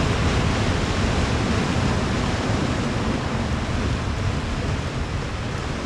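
Ocean surf breaking and washing over a rocky boulder shore: a steady rush of waves.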